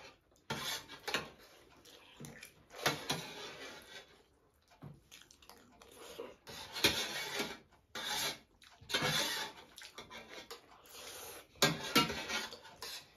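Irregular scrapes and clinks of spoons on metal plates, mixed with chewing and other eating sounds, as rice and curry are eaten.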